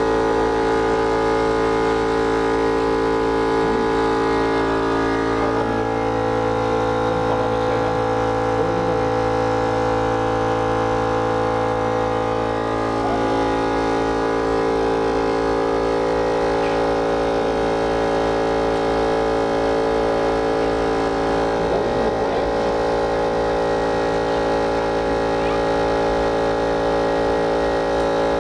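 Steady electric motor hum from the equipment of a whole-carcass beef rotisserie, many even tones held without a break; a low part of the hum drops away about halfway through.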